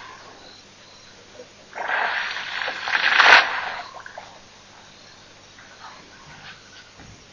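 Elephant blowing out hard through its trunk: one loud rushing blast, about two seconds long, starting about two seconds in.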